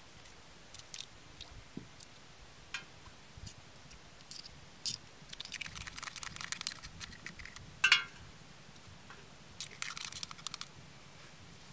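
Small crunches and clicks of an eggshell being pricked and chipped with a pointed tool, coming in scattered bursts, with the sharpest crack about eight seconds in.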